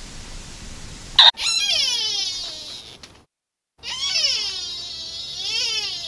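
Sika deer calling: two long, high cries with a brief silent gap between them, the first sliding down in pitch, the second dipping and then rising and falling again. A short loud click comes just before the first cry.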